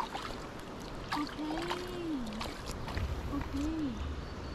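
River water moving and lapping steadily, with a few sharp ticks and two short rising-and-falling hums from a person's voice.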